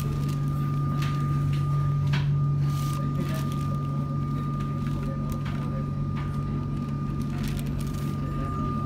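Interior of a moving Melbourne Metro electric suburban train: a steady low hum with a constant high-pitched whine from the drive, and scattered clicks and rattles from the carriage.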